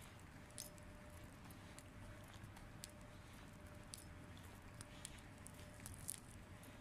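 Near silence: faint room tone with a steady hum, and scattered faint ticks and scuffs.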